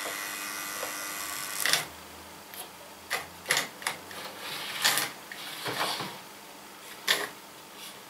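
Small plastic and metal clicks and knocks of an OO gauge Mainline N2 tank locomotive being handled and set on the track, after a short steady electric-motor hum that a knock cuts off early on. The loco runs jerkily, which the owner puts down to worn motor brushes.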